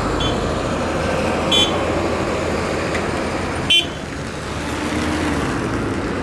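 Steady rumble of a moving road vehicle, with two short horn toots about two seconds apart, the first about a second and a half in.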